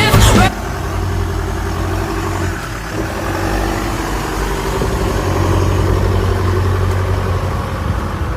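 Vehicle engine running steadily with a low hum, coming in as music cuts off about half a second in.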